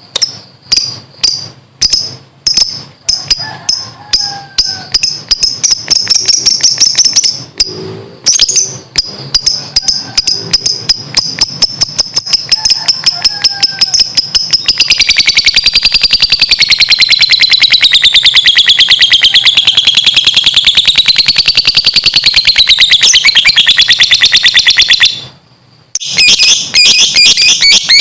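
Lovebird ngekek: a long, rapid, shrill chattering song. It starts as strings of quick high chirps, then runs into one unbroken fast trill that wavers up and down in pitch for about ten seconds. It breaks off suddenly and returns to short chirp bursts near the end.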